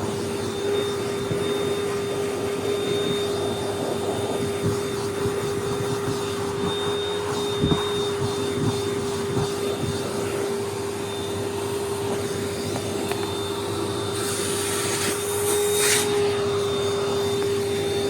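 Vacuum cleaner running steadily, with a strong hum over the hiss of its suction; the airflow hiss briefly grows brighter about fourteen to sixteen seconds in.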